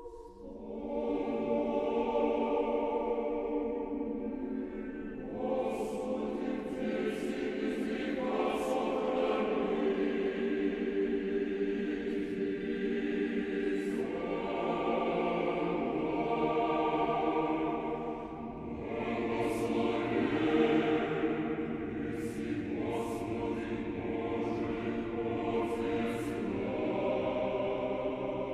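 Large mixed church choir of men and women singing Orthodox liturgical chant a cappella, in long held chords with sibilant consonants, starting about a second in.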